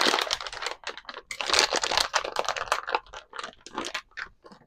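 Garlic cloves being crushed: an irregular run of crunching and crackling, busy at first and thinning to scattered crackles in the last second or so.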